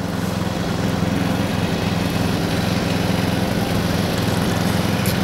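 Racing ride-on lawn mower's engine running flat out on a hot lap: a steady engine drone that grows slightly louder over the first second or two.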